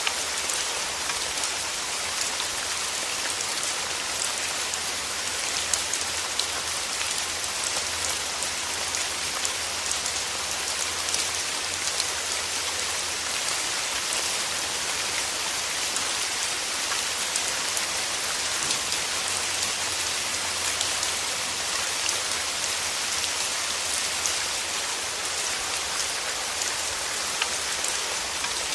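Steady rain falling, a dense even hiss with many small drop ticks pattering on a surface.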